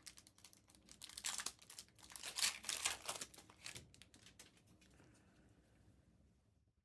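Trading cards and their plastic packaging being handled by hand: a run of quick crinkles, slides and clicks that fades out after about four seconds.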